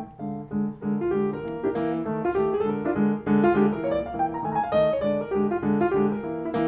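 Background piano music: a steady repeated pattern of low notes with a melody above it.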